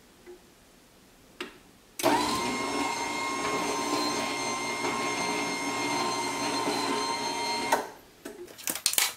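Genie 3155L belt-drive garage door opener motor running in a test before installation, with a steady whine. It starts about two seconds in after two faint clicks, runs for about six seconds and stops abruptly.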